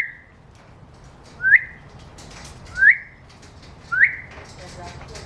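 African grey parrot whistling a short rising note, three times about every second and a half, with faint clicks between the whistles.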